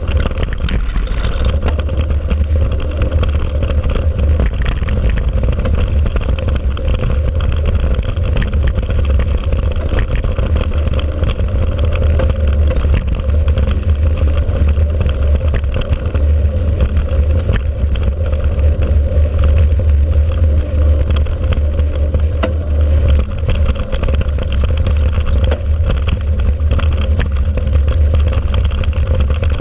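Steady wind rumble and jolting on a handlebar-mounted action camera as a mountain bike rides a dirt forest trail, with the small rattles and clicks of the bike over the ground.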